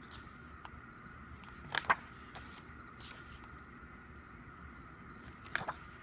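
Pages of a glossy photo book being turned by hand, two short crisp paper flips, one about two seconds in and one near the end. A faint steady hum runs underneath.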